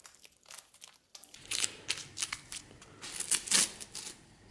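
A strip of white cloth being cut with a knife. About eight short, sharp rasping rips come from about a second and a half in until near the end, the loudest just before the end.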